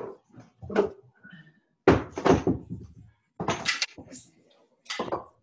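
Kitchen cupboard doors and kitchenware banging during tidying up: about five separate knocks and clatters over a few seconds, picked up over a video call.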